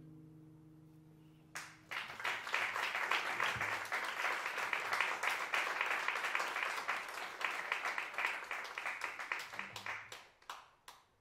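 Audience applauding a choro ensemble, starting about a second and a half in as the band's last chord fades, then thinning to a few scattered claps near the end.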